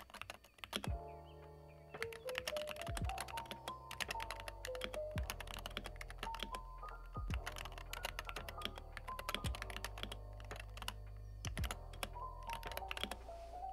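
Fast, continuous typing on a Wooting 60HE keyboard with magnetic Hall-effect switches: a dense clatter of keystrokes with quite a scratchy sound. Background music with a bass line and a stepped melody comes in about a second in.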